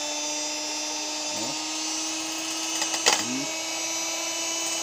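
Scarlett Super electric hand mixer running with its beaters spinning in the air: a steady motor whine, with a sharp click about three seconds in. The repaired mixer is working again.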